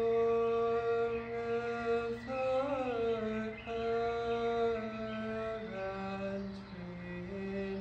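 A man's voice singing slow, wordless held notes, each sustained for a second or more. The pitch wavers briefly about three seconds in and steps lower toward the end.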